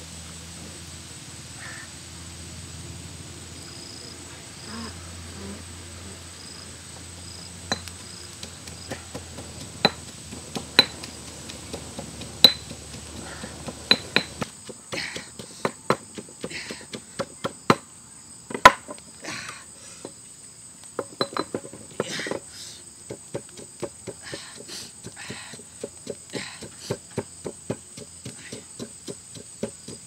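Pestle pounding chillies and garlic in a stone mortar: scattered sharp knocks that turn into a quick, steady run of strikes about halfway through. A high insect drone rings steadily behind it.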